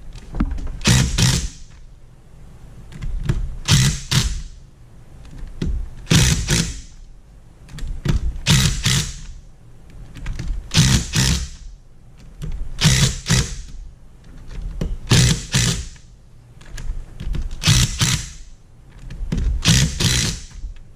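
Hand ratchet clicking in short bursts, about one burst every two seconds, as it works the screws on an E30 limited slip differential.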